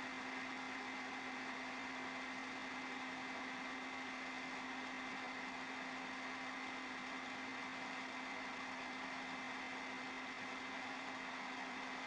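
Steady hiss with a low hum and a thin high whine, and nothing else: the background noise of an old film soundtrack.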